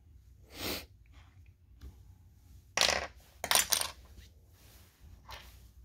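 Small metal chainsaw parts and hand tools being handled on a workbench: a few short clinks and scrapes, the loudest two about three seconds in.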